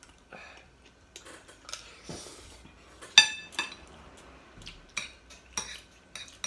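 Metal spoon clinking and scraping against a ceramic plate during a meal: scattered light clicks, with one sharp, ringing clink about three seconds in.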